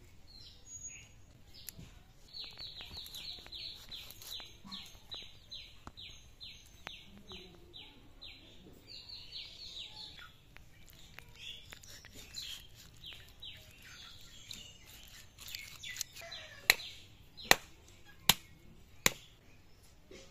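A bird calling a fast run of short, falling high notes, about three a second, for several seconds. Near the end come four sharp knocks about a second apart, louder than anything else.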